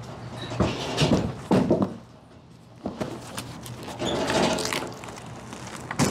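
Irregular scraping and knocking as an old wooden-framed couch is hauled up and out through a steel shelter hatch, with a sharp knock near the end.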